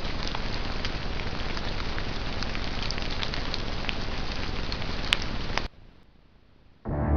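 Steady hiss with faint scattered ticks picked up by a trail camera's built-in microphone. It cuts off suddenly about five and a half seconds in, and after a brief lull music starts near the end.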